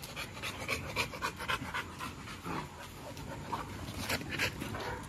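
Dogs panting quickly during rough play-wrestling, several short breaths a second.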